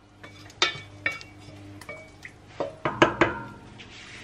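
Kitchen utensils clinking against a cooking pot and dishes while ingredients are transferred into it: a series of sharp, briefly ringing clinks, several bunched together about three seconds in.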